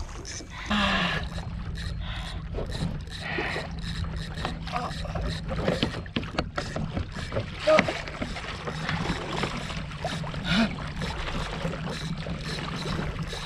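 A steady low hum slides down in pitch about a second in and then holds, under scattered clicks and knocks from the fishing tackle and kayak while a big bluefin tuna pulls against the rod. A couple of short grunts come near the start.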